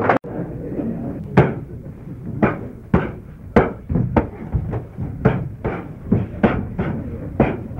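Padded boxing gloves landing punches in sparring: a string of sharp, irregular smacks, at first about one a second, then coming faster, two or three a second, in the second half.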